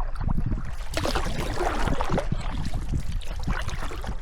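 River water rushing and splashing around a canoe under way, over a steady low rumble. A louder splash of water comes about a second in and lasts a second or so.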